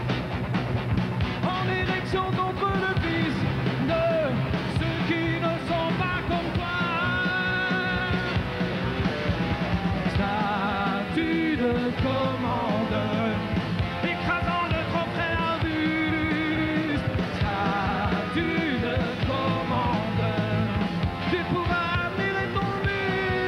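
Live rock band playing an instrumental passage: electric guitar lead with bent, wavering notes over bass, drums and keyboards.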